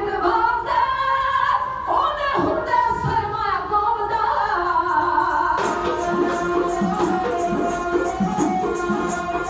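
Punjabi dhadi folk music: women singing with sarangi accompaniment, their voices gliding in pitch. About two-thirds of the way through, the singing gives way to an instrumental passage of rhythmic dhadd drum strokes under a steady sarangi line.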